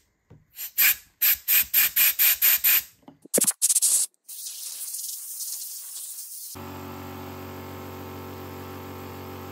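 Compressed air from a blow gun blasted through the jet holes of a plastic lawnmower carburettor body to clear them: a quick series of short blasts, about four a second, then a few more, then a longer steady hiss. About two-thirds of the way in, a steady hum starts and continues to the end.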